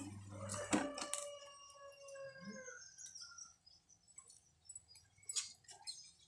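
A couple of sharp clicks, then a long, slightly falling call from an animal or bird lasting about two seconds, and another sharp click about five seconds in.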